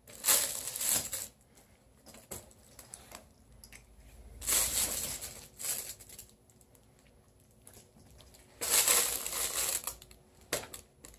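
Crinkly fabric cat tunnel rustling and crinkling in three bursts, each a second or two long, as it is pushed and pawed during play.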